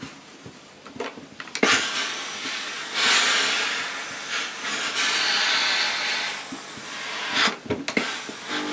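Tefal Effectis GV6720 steam generator iron, fed by its high-pressure boiler, blasting steam from the soleplate: a loud, steady hiss that starts a couple of seconds in and is strongest around the middle, briefly dropping near the end. Before it, a few soft knocks of hands smoothing the cloth on the ironing board.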